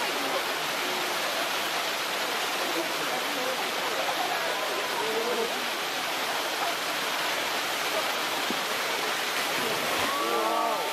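Steady rush of running water in a polar bear pool, with faint onlookers' voices. About ten seconds in, something splashes into the pool and a voice calls out.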